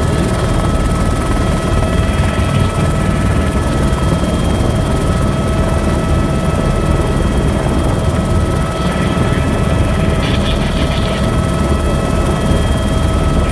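Helicopter heard from inside its cabin in flight: loud, steady engine and rotor noise with a constant high whine over it.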